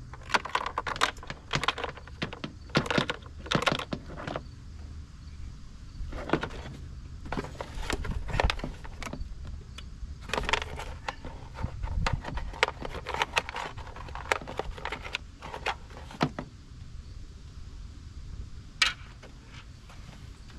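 Plastic car door trim panel being handled and pressed onto the metal door: irregular clicks, knocks and rattles as it is pushed and seated, with one sharp click near the end.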